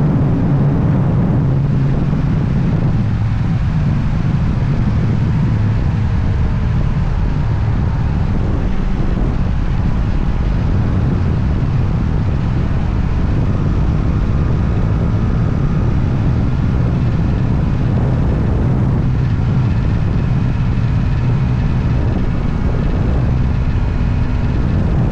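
Motorcycle engine running steadily on the road, a low drone whose pitch drifts up and down slightly with the throttle.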